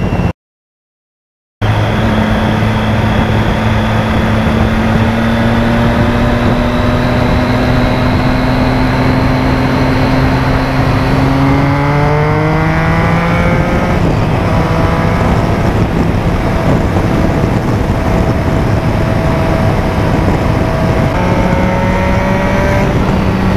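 Motorcycle engine pulling at road speed under heavy wind rush on the camera: the revs climb slowly, rise sharply about halfway through, then hold steady and climb again near the end. A short dropout of silence just after the start.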